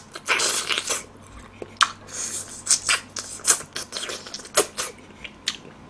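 Close-miked eating sounds: a man gnawing and sucking meat off a pork spine bone held in his hand. It comes as a string of short wet sucking and smacking noises with a few sharp clicks.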